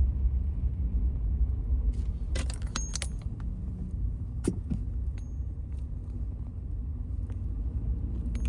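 Car interior rumble while driving slowly on a snow-packed, unplowed road, with a cluster of short rattling clicks a couple of seconds in and another click about halfway through.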